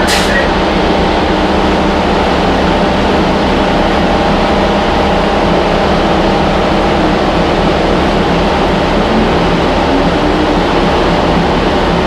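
Cabin sound inside a New Flyer Xcelsior XD40 city bus: its Cummins ISL9 inline-six diesel and drivetrain running steadily, a constant rumble with a steady hum. One sharp click right at the start.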